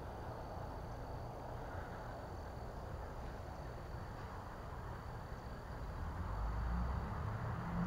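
Outdoor ambience: a steady background hiss with wind rumbling on the microphone, gusting harder about six seconds in, and faint thin steady insect tones.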